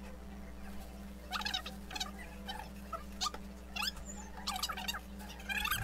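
Red plastic litter scoop scraping and sifting through cat litter in a plastic litter box, in short irregular scratchy bursts with a grainy rattle as the litter shakes through the scoop's slots, over a steady low hum.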